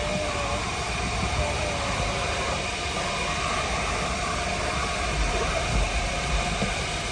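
Gas-station car vacuum running steadily: a constant rushing suction noise with a faint high whine.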